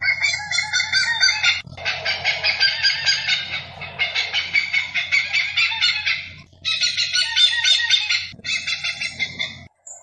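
Von der Decken's hornbill calling: long fast series of clucking notes, broken by a few short pauses and stopping just before the end.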